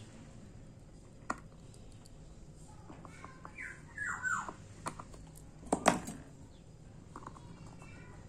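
Small sharp clicks of steel tweezers against a Seiko 6309 automatic watch movement, the loudest about six seconds in. Behind them a bird chirps a few short falling calls around three to four seconds in.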